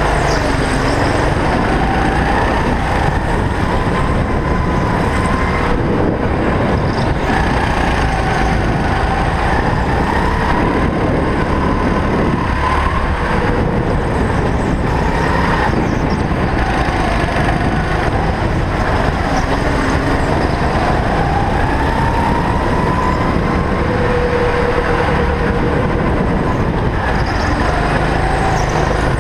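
Go-kart engine heard from on board, running continuously under a dense rush of noise, its pitch rising and falling over and over as the kart speeds up and slows through the corners.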